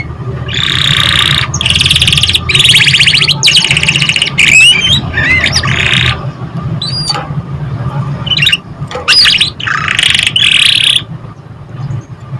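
Domestic canary singing a loud song of fast buzzing trills broken by rising whistled notes, stopping about eleven seconds in. A steady low hum runs underneath.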